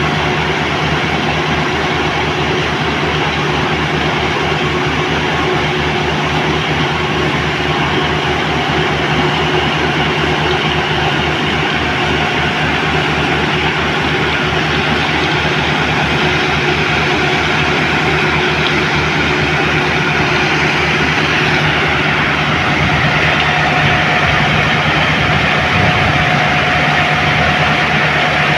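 Heavy engine of concrete-pouring machinery running steadily, with a fast even throb and a steady hum; it gets slightly louder and brighter about two-thirds of the way through.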